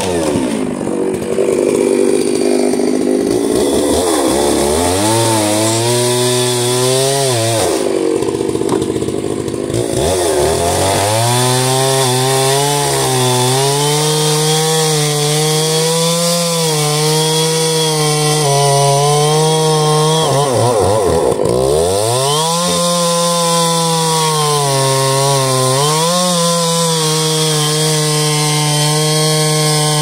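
Stihl MS 660 two-stroke chainsaw with a 42-inch bar cutting through sawmill slab offcuts at full throttle. Its engine note drops and climbs back several times between cuts, with a longer drop about eight seconds in.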